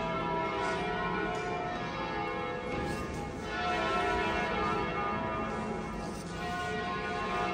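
Church bells pealing, several bells ringing together so that their tones overlap and swell continuously.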